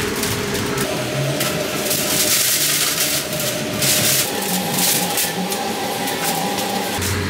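Paper takeout bags and wrapping paper rustling and crinkling as food orders are packed by hand, in bursts over a steady background hum.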